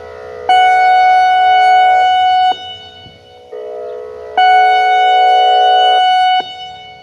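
American Signal E-Class EC4 outdoor warning siren sounding its pulse test signal: a loud steady tone blasts twice, each blast about two seconds long, with a fainter tone heard in the gaps between.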